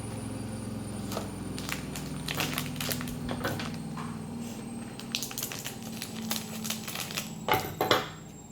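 Plastic toy packaging being handled and opened: scattered crinkles and sharp clicks that grow busier and loudest near the end, over a steady low hum.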